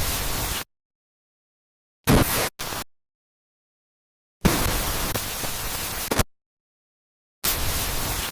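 Bursts of harsh static-like hiss, four of them and of uneven length, each cutting in and out abruptly with dead silence between.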